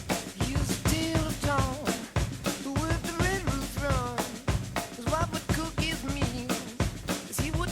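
Soundtrack music: a drum kit playing a fast, steady beat with a lead melody that bends in pitch.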